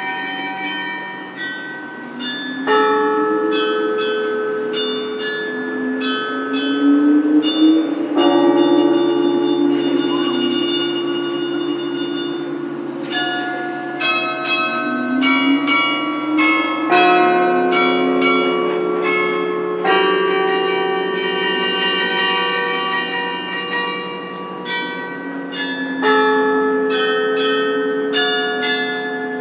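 The carillon of the Cunera Tower playing a slow melody. Struck bell notes follow one another, each ringing on with bright overtones, over deeper bell notes that are held for several seconds at a time.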